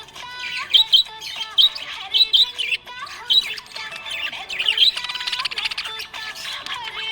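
Budgerigar chirping and warbling in a busy run of short, sharp chirps, with a buzzy chattering stretch around the middle.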